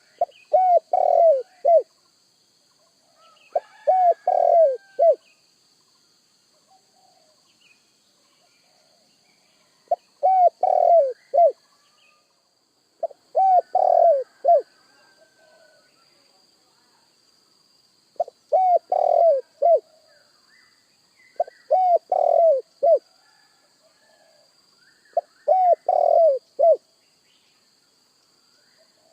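Spotted dove (tekukur) cooing: seven phrases of several short, low, hooting notes, each phrase about a second and a half long, repeated every few seconds with longer pauses between some.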